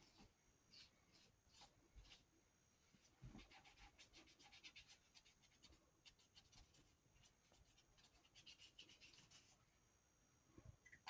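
Faint snipping and tearing of a T-shirt's fabric as it is cut and ripped at the hem: scattered single snips, with fast crackling runs about three seconds in and again about seven seconds in.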